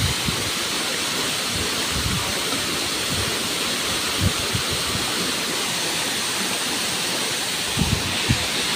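Tall waterfall plunging into a pool: a steady rush of falling water, with a few soft low thumps.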